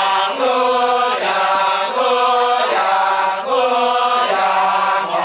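Kecak chorus of many men chanting together, in held tones whose pitch shifts about once a second.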